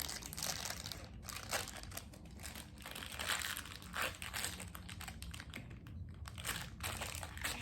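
Packaging crinkling and rustling in irregular bursts as the top-right door of a Doorables multi-pack box is worked open by hand.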